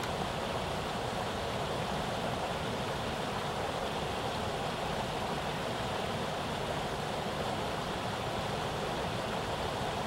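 Steady rush of stream water pouring over a spillway, an even, unbroken noise.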